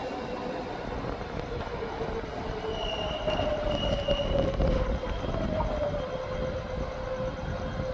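Taiwan Railway EMU500 commuter train running slowly, with a steady tone that gradually falls in pitch and a brief high squeal about three seconds in.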